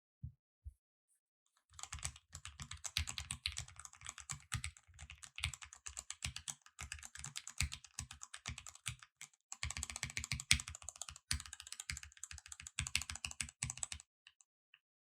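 Mechanical keyboard with Gateron Milky Yellow linear switches being typed on quickly, a fast, even patter of keystrokes. A couple of single key presses come first, and there is a brief pause about two-thirds of the way through before the typing stops near the end.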